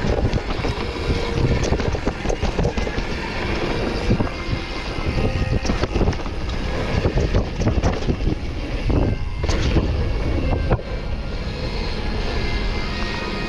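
Wind buffeting the microphone, with the rattle and knocks of a dirt-jump mountain bike rolling fast downhill over a bumpy dirt trail, and the hiss of its tyres on the dirt.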